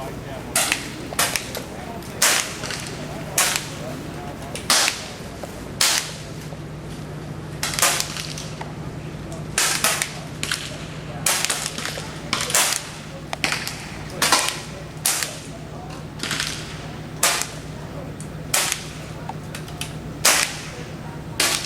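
Pellet air rifles firing on a benchrest line: a string of sharp, short cracks at irregular intervals, roughly one a second, sometimes two close together, over a steady low hum.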